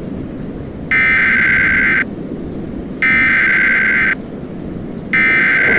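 Emergency Alert System SAME header: three bursts of warbling two-tone digital data, each about a second long with a second's gap between them. This is the coded header that opens a weather radio alert and triggers receivers.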